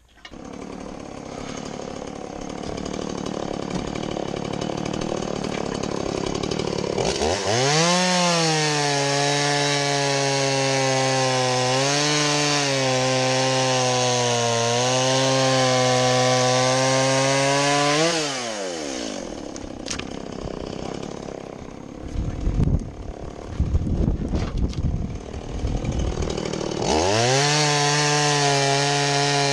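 Two-stroke chainsaw idling, then revved to full throttle for a cut of about ten seconds, its pitch dipping briefly under load, before dropping back to idle. A few low thumps follow, then it revs up again near the end. The chain is freshly sharpened and being tried out.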